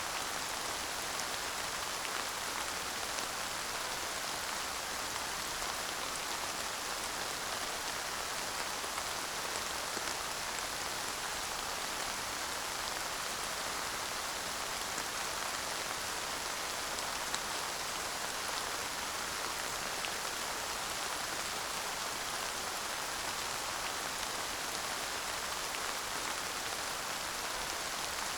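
Steady light rain falling, an even hiss with scattered fine drop ticks and no thunder.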